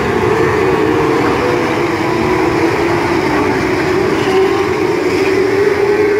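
A pack of TQ midget race cars running laps on a dirt speedway oval, their engines blending into one loud, steady engine note that holds without a break.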